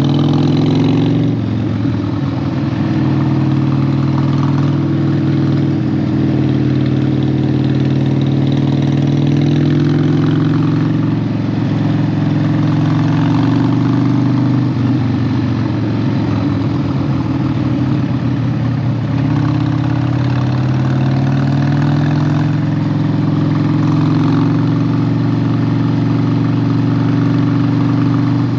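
Harley-Davidson 1200's V-twin engine running steadily while riding. Its note rises and falls with the throttle, shifting pitch a few times.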